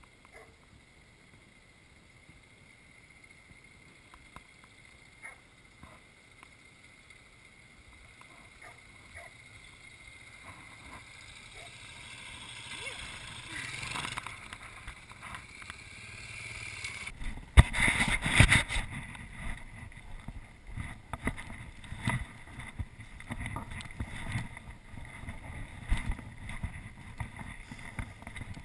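Off-road motorcycles riding, heard from an on-bike camera. The first half is faint and slowly builds. From about 17 s in come loud engine and wind noise, with frequent knocks and jolts from riding over rough dirt track.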